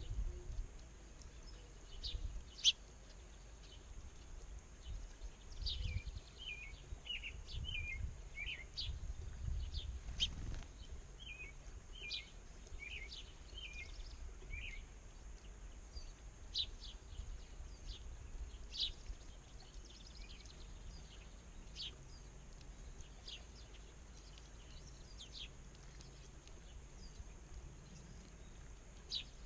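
Small songbirds chirping, with many short, high, downward-sliding calls scattered throughout and a quicker run of lower chirps in the middle. A low rumble of wind or outdoor background noise lies underneath.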